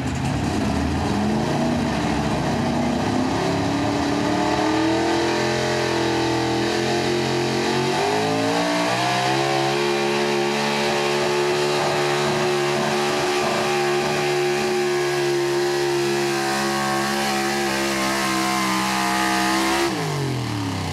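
The engine of a 6400 Pro Stock 4x4 pulling truck runs at full throttle while dragging a weight-transfer sled. Its pitch climbs for the first eight seconds or so, holds high and steady, then falls off sharply near the end.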